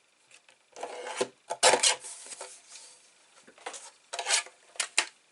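Paper being handled and cut: a few short rasping strokes, the loudest about two seconds in and smaller ones near the end.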